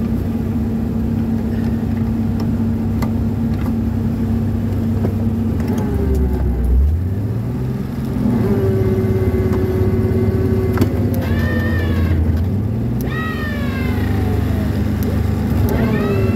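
Muskeg tractor engine running, the engine note climbing about halfway through as it revs. Several short high-pitched whines that fall in pitch come in over it about two-thirds of the way through.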